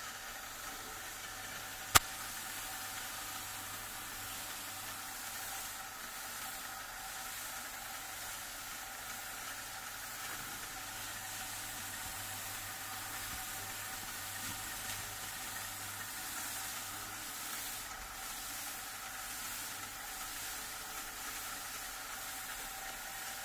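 A star roller running: a plastic drum turning with black-powder-coated rice hulls tumbling inside, a steady soft hiss with a faint even motor hum. One sharp click about two seconds in.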